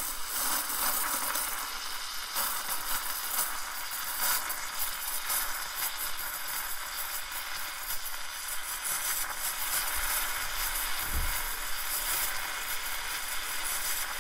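Espresso machine steam wand stretching cold milk in a stainless steel pitcher, its tip held just under the surface: a steady, scratchy hiss with fine crackle as air is drawn into the milk, the stretching phase of milk frothing.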